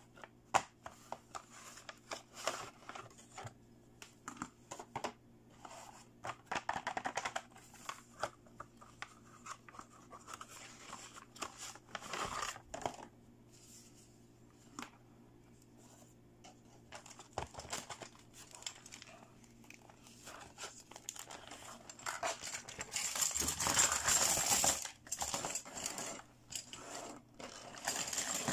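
Hands opening toy packaging: cardboard doll boxes and plastic film crinkling and tearing, with scattered clicks and taps of plastic parts. About three-quarters of the way through comes a longer, louder burst of plastic bag rustling and tearing.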